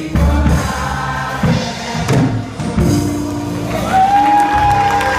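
A male gospel singer singing into a handheld microphone over music with a steady bass line. Near the end he slides up into a long held high note.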